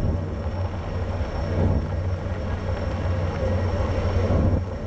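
Ship's engine running with a steady low rumble.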